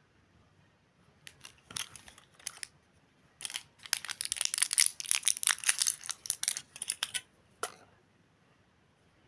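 Foil-backed plastic blister pack crinkling and crackling as it is peeled open by hand: a few short crackles first, then about four seconds of dense crackling, and one last crackle near the end.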